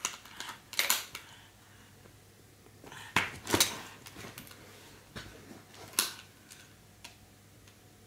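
Brass latches and hinged wooden doors on a child's latches board clicking and rattling as a baby fiddles with them: a few quick clicks at the start, a louder clatter around three seconds in, and one sharp click about six seconds in.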